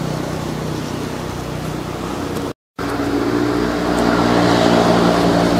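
A motor running steadily in the background, a low hum with a few held tones. It cuts out abruptly for a moment about two and a half seconds in, then carries on a little louder.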